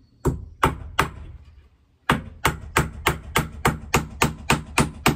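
Hammer nailing a wooden trim board: three blows, a pause of about a second, then a steady run of blows about three a second.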